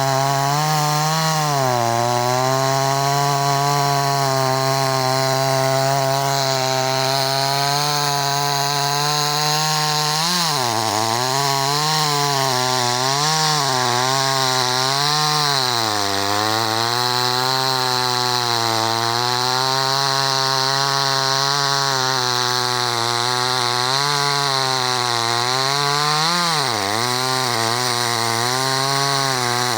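Chainsaw engine running at high speed while cutting wood, its pitch dipping and recovering repeatedly from about ten seconds in as the chain bites into the cut.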